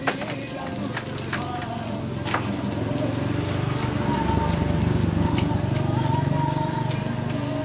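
Fried rice sizzling in a metal wok over the stove's flame: a steady low rush that grows fuller about halfway through, with a few sharp clicks in the first two and a half seconds.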